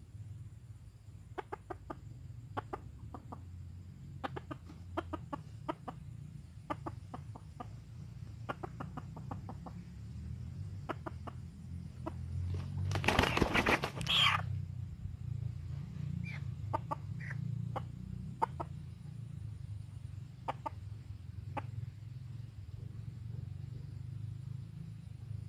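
A chicken clucking in short, scattered clucks, with one loud burst lasting about a second and a half a little past halfway through.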